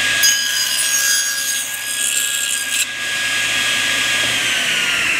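Table saw running with a steady whine while a blade cuts the end of a frame rail held upright in a tenoning jig, clearing waste for a bridle-joint tenon; the cut lasts about two and a half seconds. Near the end the whine slowly falls in pitch as the blade winds down.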